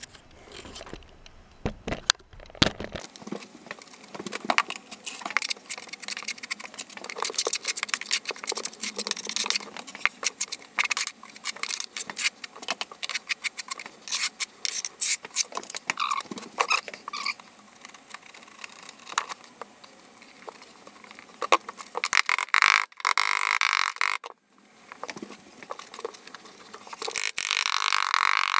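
A 3/16-inch V-notched steel trowel scrapes and clicks against the wall as white thinset mortar is spread and combed out. Then glass mosaic tile sheets are handled and pressed into the mortar, with rustling and taps; the loudest scraping comes in two spells near the end.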